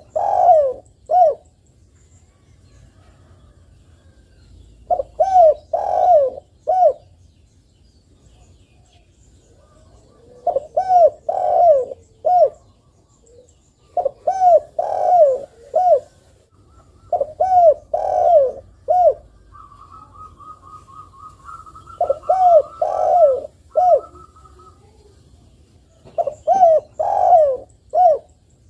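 Spotted dove (tekukur) cooing in repeated phrases of three or four coos, a phrase about every four seconds. A fainter, higher buzzing trill overlaps for a few seconds midway.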